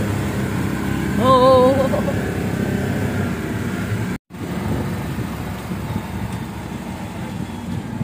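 Engine and road noise from inside a moving vehicle, with a short wavering tone about a second and a half in. The sound cuts out for a moment about four seconds in, then a steady noise carries on.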